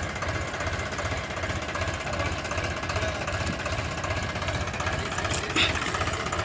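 Diesel tractor engine running steadily with a rapid, even knocking beat, with a short sharp clack about five and a half seconds in.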